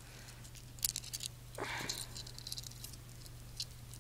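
Faint, scattered clicks and light rattles of a Time Turner replica's metal chain and pendant being handled and lifted off its display stand, with a soft rustle about halfway through.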